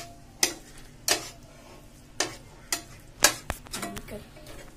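Spatula scraping and knocking against a hammered stainless-steel pan while stirring a thick coconut-burfi mixture, giving about seven irregular clinks.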